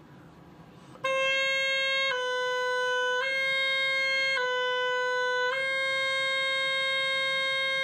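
Oboe playing a slurred one-breath finger exercise, alternating C and B: C, B, C, B, C, each note about a second, starting about a second in, with the last C held on. Each change between the two notes moves only one finger.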